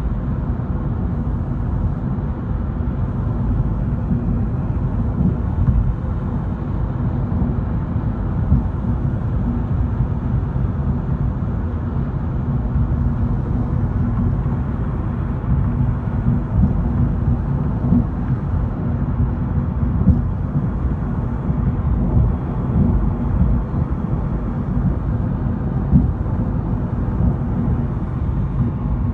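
Steady low road rumble of a car driving at highway speed, heard inside the cabin, with small irregular bumps from the road surface.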